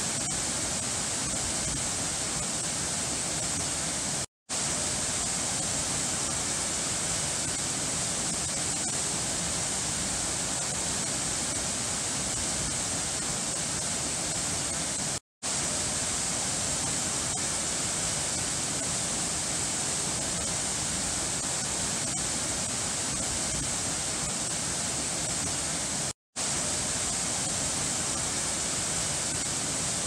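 Waterfall pouring over rocks: a steady rush of water that cuts out to silence for a split second three times, about eleven seconds apart.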